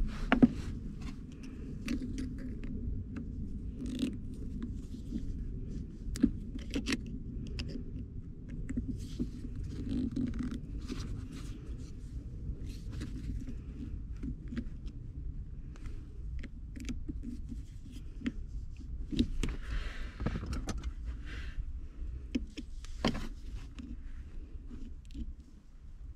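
Scattered small clicks, scrapes and rustling as fingers and a small flat-blade screwdriver work at the crimped metal clamp that holds the shift boot to a manual gear lever. A steady low rumble runs underneath.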